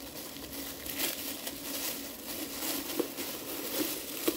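Clear plastic packaging bag crinkling and rustling as it is handled and pulled open, with scattered crackles and a couple of small sharp taps near the end.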